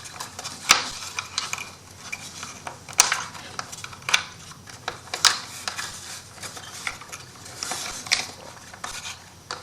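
MDF wood pieces being fitted together by hand: light rubbing and scraping of wood on wood, with several sharp clicks and taps as tabs are pushed into their slots.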